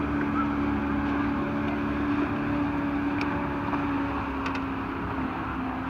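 Motorboat engine droning steadily, its pitch sagging slightly near the end, with a few faint ticks over it.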